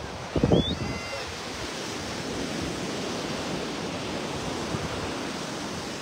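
Steady wash of sea surf mixed with wind buffeting the phone's microphone, with a short louder gust about half a second in.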